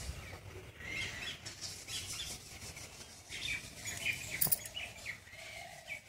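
Small birds chirping, with short high calls repeating throughout, and a single click about four and a half seconds in.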